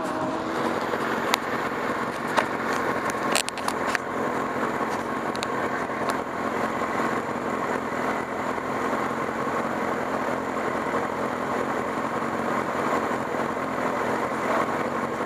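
Kalì Kart's Honda engine idling steadily, heard onboard while the car sits still. A few sharp knocks in the first few seconds.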